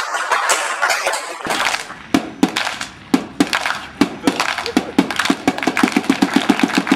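Crowd sound at a football match: a rhythmic beating that quickens from slow, uneven beats to about five beats a second as play goes on, over spectators' background voices.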